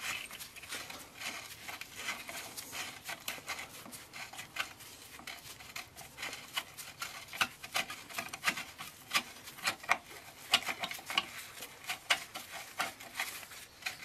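A tool turning the square-headed adjuster in a Classic Mini's rear drum-brake backplate to screw it out, giving a run of small irregular metal clicks and scrapes that come more often in the second half.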